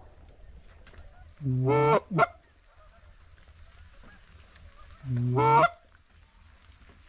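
Hand-blown goose call sounding close by: a half-second honk about a second and a half in, then a short upward note, and another honk about five seconds in.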